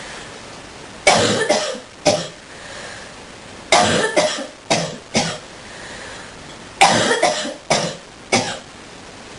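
A person coughing deeply in a fit: three bouts of several hacking coughs each, about three seconds apart, with short pauses between them.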